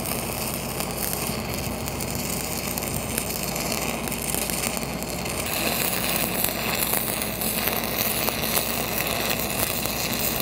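Stick-welding arc from a 1/8-inch 7010 rod running a hot pass on steel pipe: a steady frying crackle, a little louder and hissier about halfway through.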